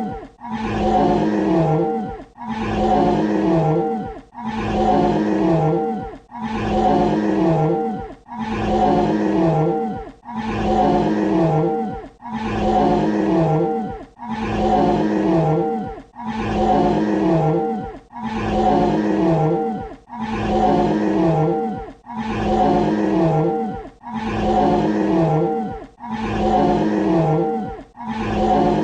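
Dinosaur roar sound effect looping: the same roughly two-second growling roar repeats back to back about fourteen times, each one dipping in pitch at its end before a short gap.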